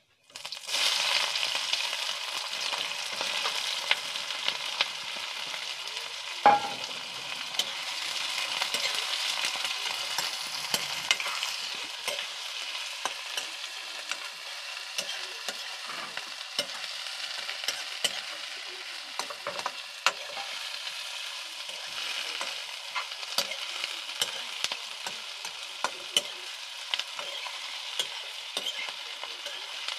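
Sliced onions hitting hot oil in a steel kadai and sizzling, starting suddenly about half a second in, with a metal spatula scraping and clicking against the pan as they are stirred. One sharper clank of the spatula comes about six seconds in.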